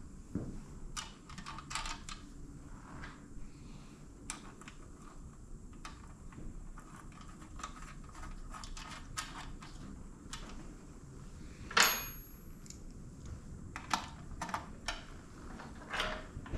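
Scattered clicks and clinks of hand tools and metal hardware being handled, with one louder metallic clink about twelve seconds in that rings briefly.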